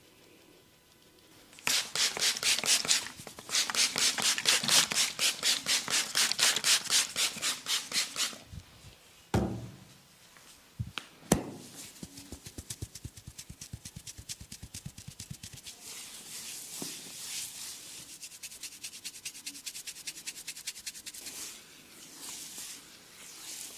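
Hands rubbing vigorously and rhythmically over an oiled scalp and hair in a head massage, about five strokes a second, stopping about eight seconds in. A dull thump and a sharp click follow, then quicker, softer rubbing strokes.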